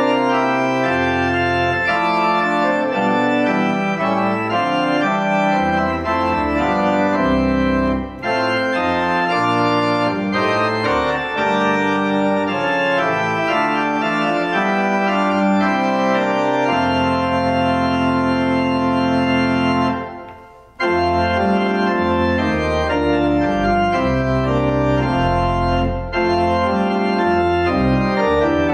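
Church organ playing the closing voluntary after the dismissal: full sustained chords moving from one to the next. About twenty seconds in, a long held chord releases, there is a brief break, and the playing resumes.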